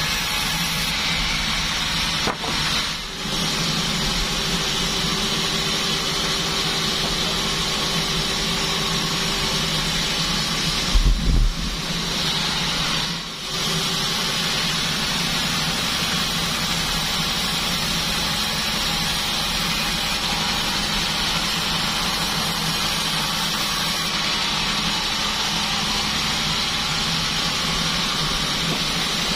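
Band sawmill with a 36-inch bandsaw running steadily, its motor humming under a hissing blade noise. A heavy thump about eleven seconds in, and two short dips in the running sound.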